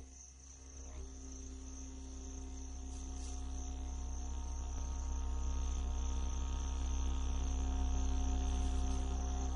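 Crickets trilling steadily over a low sustained drone, the whole bed slowly growing louder.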